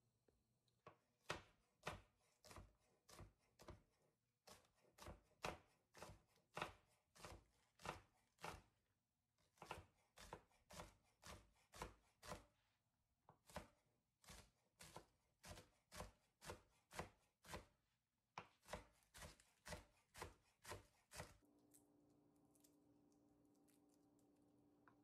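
Chef's knife chopping green onions on a wooden cutting board, in steady strokes about two a second. The chopping stops a few seconds before the end, leaving a faint steady hum.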